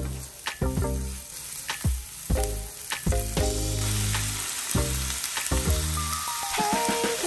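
Oil sizzling in a nonstick frying pan as onions, garlic, snow peas and red bell pepper are sautéed and stirred with a spatula, over background music with a steady beat.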